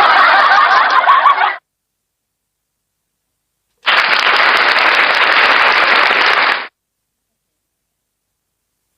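Sound effects played through a V8 live sound card: a short, wavering pitched effect that cuts off abruptly, then after a dead-silent pause about three seconds of steady noise that also stops sharply.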